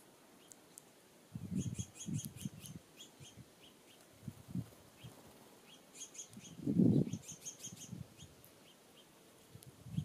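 Small songbirds chirping, short high notes in quick runs, with two busier spells about a second and a half in and about six seconds in. Low muffled bumps come in between, the loudest just before seven seconds.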